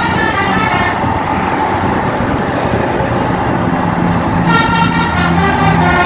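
Tour bus's telolet musical air horn sounding, breaking off about a second in and starting up again about four and a half seconds in, with engine and road noise between the blasts.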